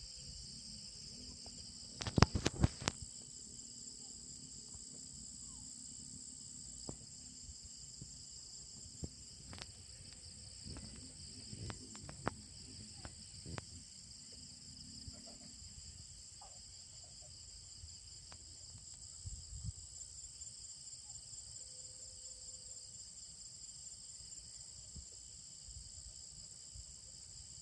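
Steady, high-pitched insect chorus in rural fields. A cluster of sharp knocks comes about two seconds in, and light scattered taps follow.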